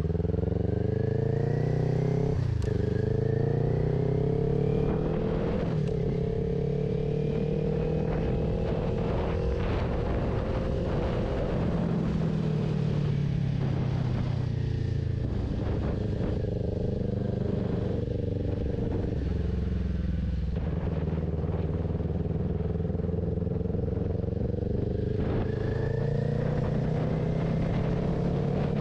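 Kawasaki Ninja 400 parallel-twin engine through a Two Brothers aftermarket exhaust, under way: it climbs in pitch and drops sharply at upshifts about two and a half and six seconds in. Later it eases off and settles, then picks up again near the end.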